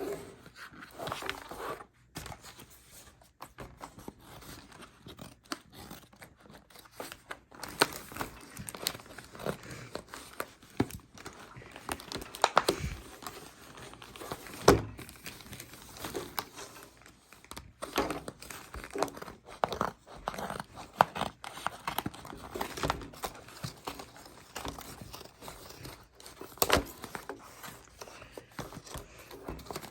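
Packaging of an assorted Post-it notes pack being torn open and crinkled by hand: irregular crackling and tearing with a few sharper snaps.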